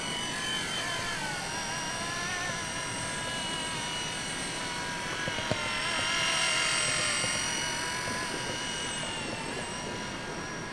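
Blade mSR micro RC helicopter's electric motors and rotor whining in flight, several whining tones sliding up and down in pitch as the motor speed changes. A single brief click about halfway through.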